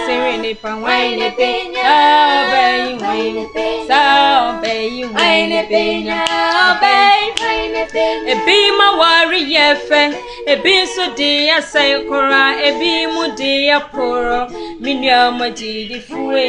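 Three young women singing a song together.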